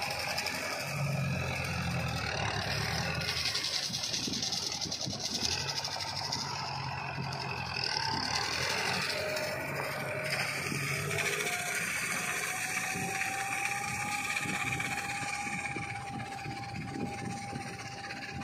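Kubota farm tractor running under load, its diesel engine droning steadily as a rear-mounted slasher cuts rice straw in a harvested paddy. The sound fades a little near the end as the tractor moves away.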